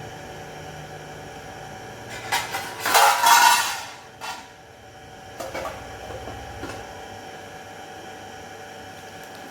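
Objects clattering and knocking as they are handled, one loud clatter about two seconds in and a few lighter knocks after it, over a steady hum.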